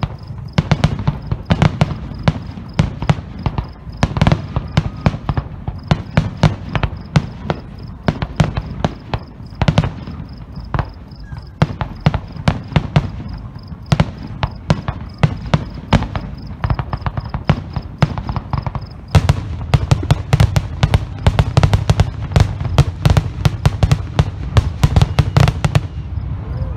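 Aerial fireworks display: a rapid, irregular run of sharp bangs and crackles from exploding shells. The bursts come thicker and louder about two-thirds of the way in.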